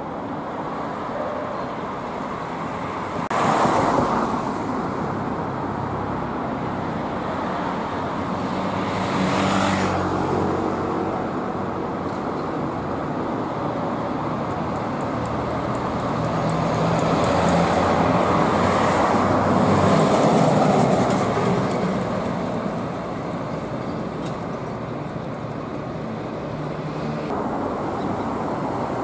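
City street traffic with Hino Ranger medium-duty trucks driving past, their diesel engines swelling in loudness around ten and twenty seconds in. A short loud rush stands out about four seconds in.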